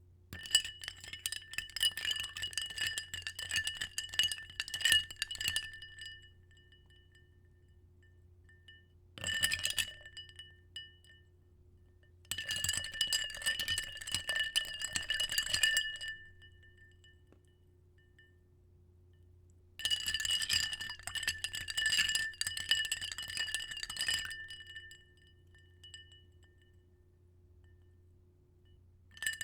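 Ice cubes swirled around in a glass, clinking and rattling against its sides in four bouts of a few seconds each. After each bout the glass rings on at two clear pitches as it dies away.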